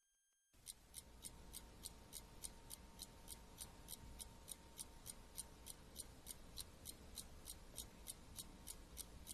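Faint, steady ticking of a clock, about three ticks a second, starting about half a second in.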